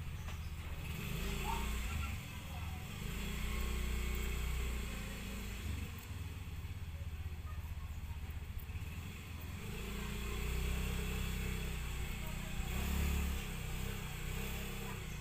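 Electric fabric-cutting machine running with a low motor hum that swells and eases in level as it is worked through stacked scuba fabric, trimming mask pieces.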